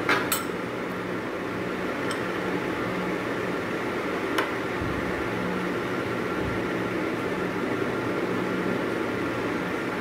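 Steady machine hum with a low steady tone running underneath, and three light clicks of a steel spoon against a ceramic bowl, in the first half.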